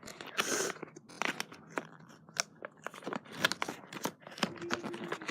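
Plastic packaging rustling and crinkling as a speed cube package is handled and opened, with many small sharp clicks and taps.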